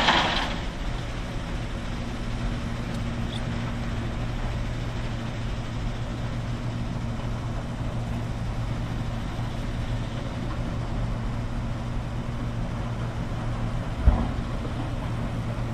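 Steady low drone of heavy machinery from a nearby construction site. There is a short noisy burst at the start and a single thump near the end.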